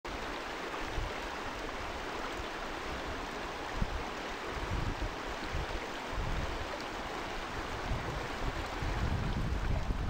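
River rapids rushing over rocks in a steady wash of water. Wind rumbles on the microphone in gusts, more often near the end.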